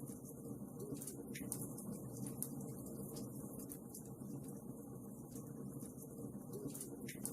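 Wood fire burning in a fireplace, with irregular sharp crackles and pops over a steady low rush of the flames.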